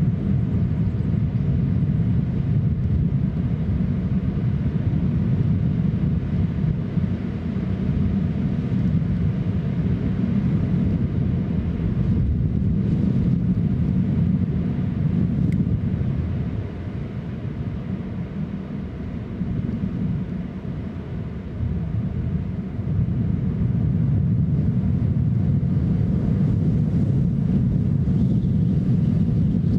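Wind buffeting an outdoor microphone: a steady low rumble with no distinct events, easing for a few seconds just past the middle before picking up again.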